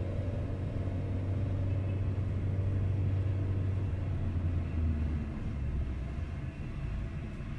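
A car's engine and road noise heard from inside the cabin while driving slowly: a steady low hum that drops lower about five seconds in.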